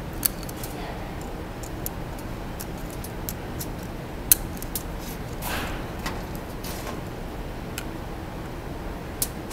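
Small metallic clicks and ticks of snap-ring pliers and a steel C-clip being worked onto the end of a CV axle shaft, with sharper clicks near the start, a little before halfway and near the end. A short scraping sound comes just after halfway.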